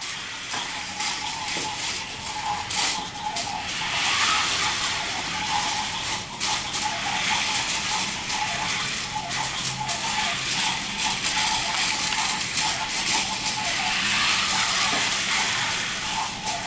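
Two GRRRUMBALL remote-control toy vehicles racing: small electric motors whirring, with frequent clicks and clattering of plastic.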